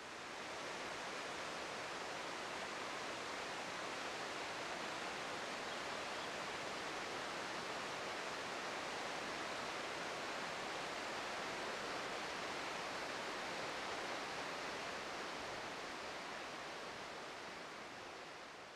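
Steady rush of the Morača river running over rocks in the canyon far below, fading in at the start and fading out toward the end.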